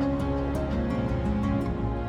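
Background music: a soft, slow instrumental of held notes with a light, regular ticking beat.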